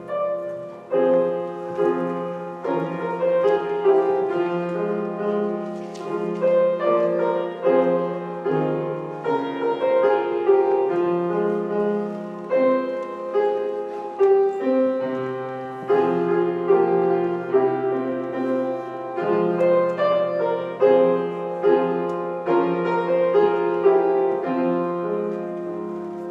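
Keyboard postlude closing a church service: slow, steady chords moving over long held bass notes.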